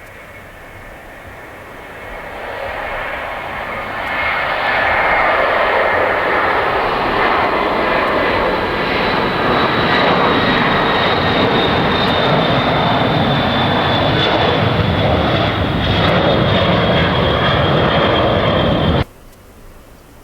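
Boeing 707-323C jet airliner taking off, its four Pratt & Whitney JT3D turbofans at full power. The noise swells over the first few seconds to a loud, steady rush with a high whine that slowly falls in pitch, then cuts off suddenly near the end.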